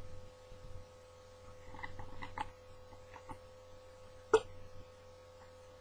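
A man spitting dip tobacco juice into a spit bottle, with one sharp, loud spit about four seconds in after a few faint mouth clicks. A steady electrical hum runs underneath.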